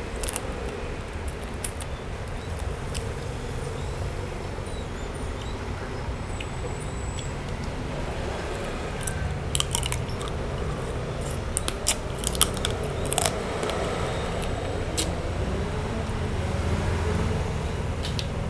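Eating grilled prawns: chewing with scattered sharp clicks and cracks, most of them bunched in the middle, over a steady low background rumble.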